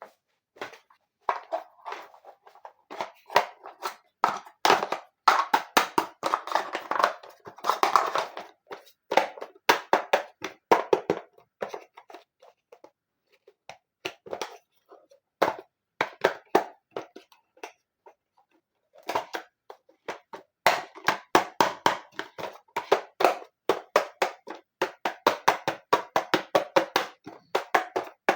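Hands handling small plastic miniature dollhouse furniture pieces: quick clicks and taps with denser rustling stretches, sparser in the middle.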